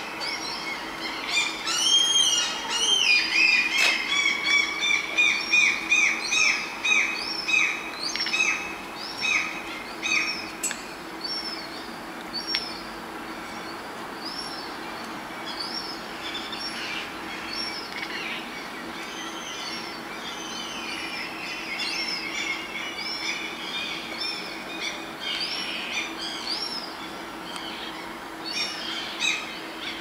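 Gulls calling: a loud run of repeated rising-and-falling cries, about two a second, during the first ten seconds, then many overlapping calls more softly.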